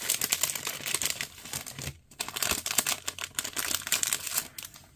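Clear plastic bag crinkling while a stack of cardstock die cuts is slid out of it: a quick run of small crackles and rustles, with a short pause about two seconds in.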